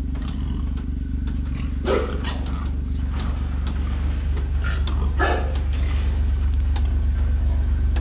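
John Deere Gator XUV835M utility vehicle's engine idling steadily with light ticks over it, a ticking noise the owner says it has developed. An animal calls out twice, about two and five seconds in.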